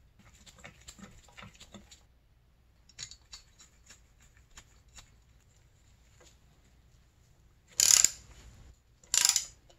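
Ratchet wrench clicking in two short, loud bursts about a second apart as it runs down a nut on the engine's cylinder, after scattered light clicks and rustles of parts and tools being handled.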